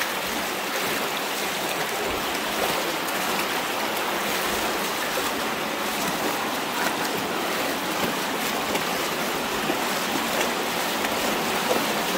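Shallow mountain river, the Río Chillar, running steadily over stones and small cascades in a narrow rock gorge.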